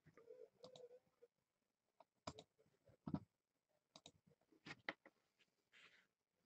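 Near silence with a handful of faint, irregular clicks.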